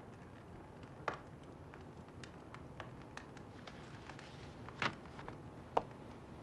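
Quiet room tone with a few scattered soft taps and clicks, the clearest about a second in and two more close together around five and six seconds in.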